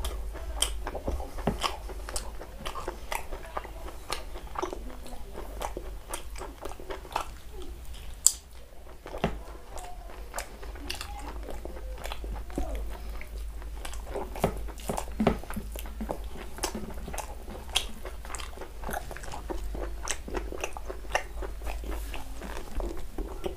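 Close-up chewing and eating sounds as a man eats chicken and rice with his fingers: irregular wet mouth clicks and smacks, over a low steady hum.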